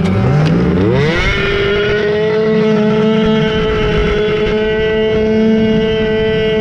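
Vintage two-stroke snowmobile engine revving up from a standing start: its pitch rises quickly over about the first second, then holds steady at high revs under full throttle as the sled runs flat out across the snow.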